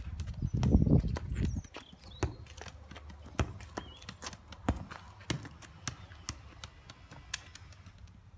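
Trainers tapping and scuffing on brick paving, mixed with the knocks of a football being kicked: an irregular string of sharp taps. A low wind rumble on the microphone, the loudest part, comes from about half a second to a second and a half in.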